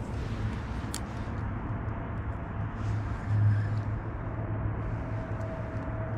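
Steady low mechanical hum over a noisy background, with a short click about a second in and a faint thin whine in the second half.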